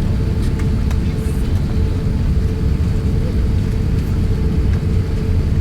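Cabin noise of an Airbus A350-1000 airliner taxiing: a steady low rumble with a steady mid-pitched hum running through it.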